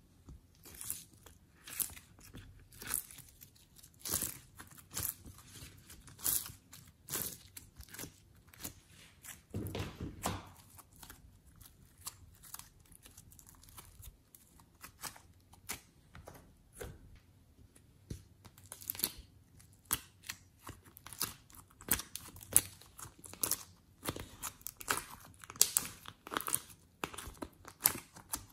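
Glossy slime being peeled out of a plastic tray, stretched and pressed by hand: sticky tearing and irregular crackling pops and clicks, coming thicker in the second half.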